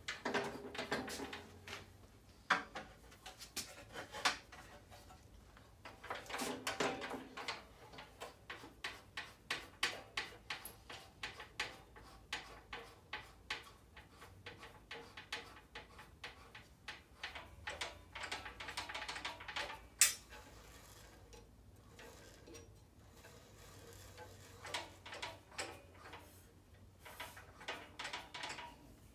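Light metallic clicking and ticking in quick runs, with one sharper click about twenty seconds in, from hand work on a Dewalt DW876 bandsaw's blade and upper wheel as a new blade is fitted; the saw's motor is not running.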